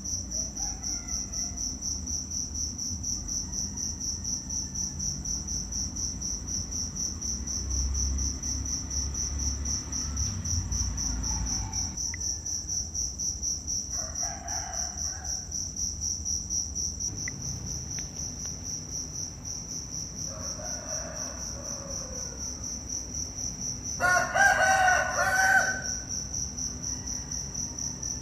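Steady, rapidly pulsing high chirring of insects, with a rooster crowing now and then; the loudest crow comes near the end.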